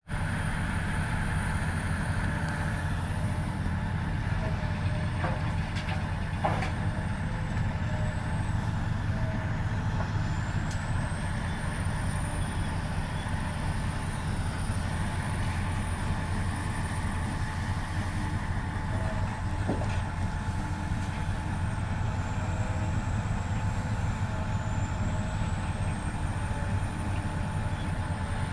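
Diesel engines of a Cat 365B hydraulic excavator and a rigid dump truck running steadily under load while the excavator loads the truck. A few sharp knocks come through, about five, six and twenty seconds in.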